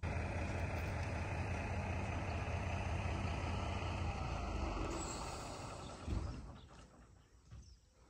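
A heavy engine running with a deep rumble that dies away after about five seconds.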